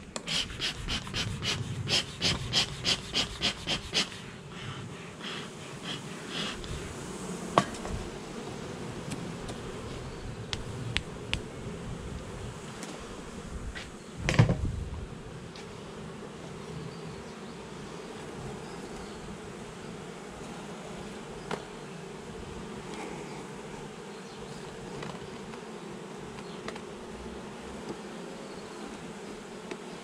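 Honeybees buzzing steadily around an open hive. A rapid run of scraping strokes from a metal hive tool comes in the first few seconds, and a single thump about halfway through.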